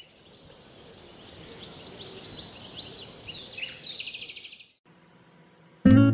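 Birds chirping and trilling over a steady high hiss, fading in at the start and cutting off suddenly just before five seconds in. Strummed acoustic guitar music starts near the end.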